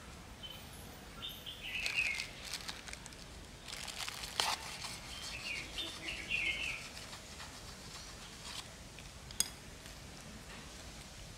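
Small birds chirping in two short runs of calls, over scattered crackles and rustles of hands working dry soil and stem cuttings in a plastic basket, with one sharp click near the end.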